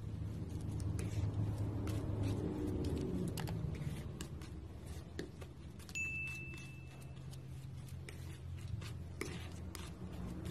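Metal palette knife scraping and spreading thick paint on a hard surface: many small sharp clicks and scrapes over a low steady hum. About six seconds in, a single high ding rings for about a second, from a subscribe-bell animation.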